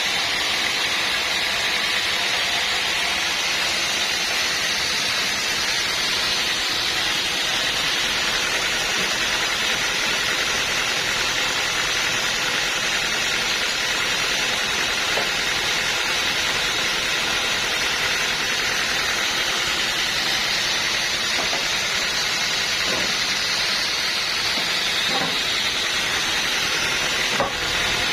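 Sawmill machinery running steadily, a constant loud hiss-like noise, with a few faint knocks late on.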